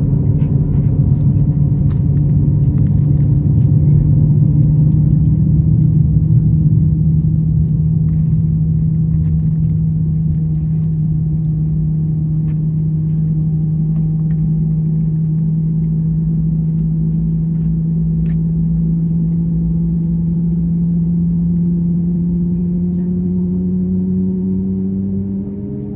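CFM LEAP-1A turbofan engines of an Airbus A321neo heard from inside the cabin during the second engine's start: a loud, steady low drone with a hum and faint whine. Near the end the tone climbs in pitch as the engine spools up.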